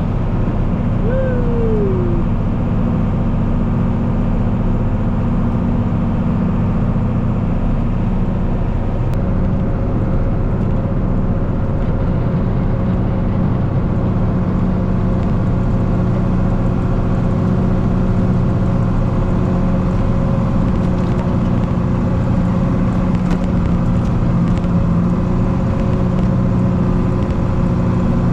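An engine running steadily at a constant speed, with a brief falling squeal about a second in.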